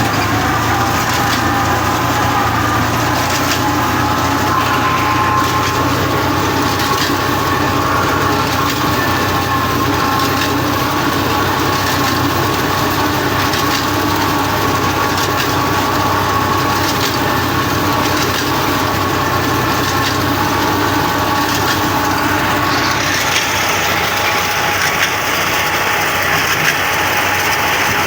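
Fiat tractor engine running steadily under load while its reaper binder works, with a constant clatter of short knocks from the cutting and binding mechanism. The tone of the sound changes a few seconds before the end.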